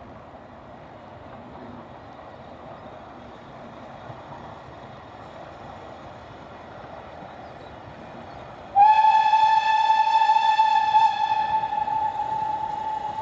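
A steam locomotive's whistle opens suddenly about nine seconds in: one long blast on a single steady pitch that is held and slowly dies away. Before it there is only a steady even noise of the train.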